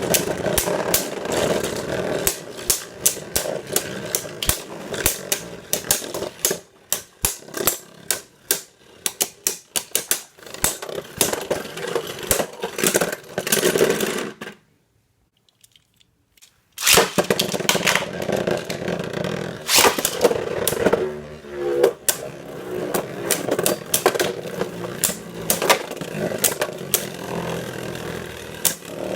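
Beyblade Burst tops, Crash Ragnaruk among them, spinning and clashing in a plastic Takara Tomy B-09 stadium: a steady whir with many sharp collision clicks. About halfway through the sound cuts out for around two seconds, then a second battle starts with more whirring and clicks.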